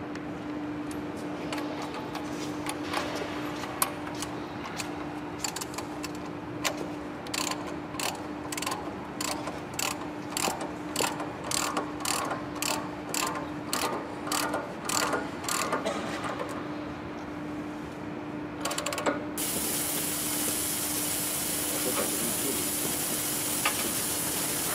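Pipe-handling machinery in a pipelay vessel's firing line: a steady machine hum, with a run of regular metallic clicks in the middle, about two or three a second. About three quarters of the way through, a loud steady hiss starts.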